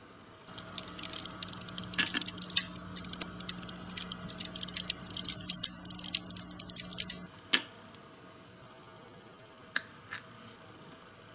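Small plastic miniature kitchen pieces clicking and rattling as they are handled, a quick run of light ticks over a faint steady hum for most of the first seven seconds. Near the end, a few separate sharp clicks as pieces are set down on the counter.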